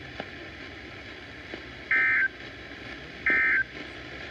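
Emergency Alert System end-of-message code ('NNNN') sent as short two-tone digital data bursts over steady radio static. Two identical bursts, each about a third of a second long, come about two seconds in and again about a second later. They mark the end of the alert.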